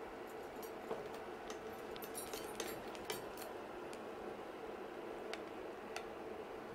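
Spatula scraping and tapping in a frying pan as a cooked egg fritter is lifted out and set on a plate: a scatter of light clicks and scrapes, busiest from about two to three and a half seconds in, over a faint steady hum.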